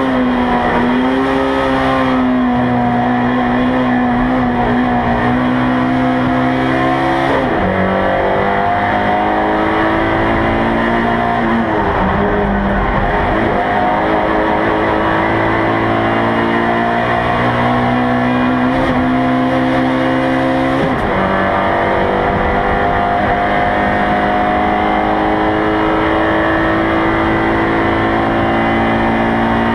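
Race car engine heard from inside the cockpit, running hard at high revs. Its pitch climbs steadily as the car accelerates and drops sharply at gear changes, about three times.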